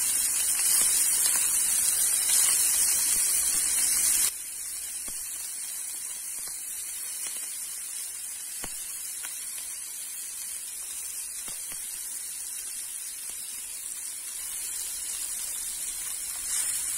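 Meatballs sizzling as they sear in a hot stainless steel frying pan, a steady hiss. About four seconds in the sizzle drops suddenly to a quieter level and carries on, with a few faint ticks.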